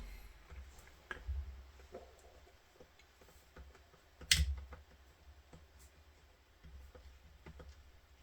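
Faint handling noise of small hard parts, a series of light clicks with one sharp click about four seconds in.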